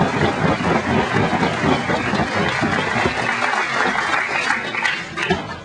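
Large indoor crowd applauding and cheering, dense and loud, dropping away near the end.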